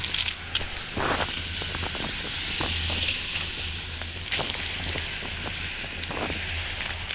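Boat motor running with a steady low hum, under wind on the microphone. A few sharp knocks sound about a second in, near the middle and near the end.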